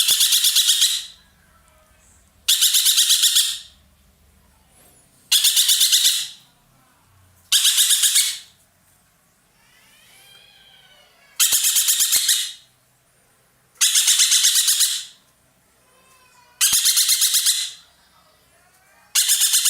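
Ekek keling bird calling loudly in full voice: a harsh, rapid rattling call about a second long, repeated eight times at intervals of two to three seconds.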